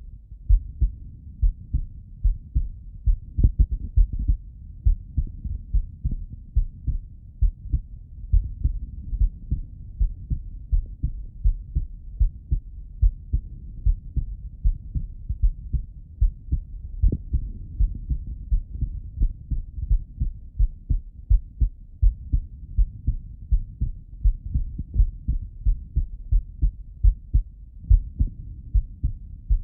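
A man's heartbeat heard through the bell of a Littmann stethoscope: a steady, even rhythm of short low thuds with nothing above them.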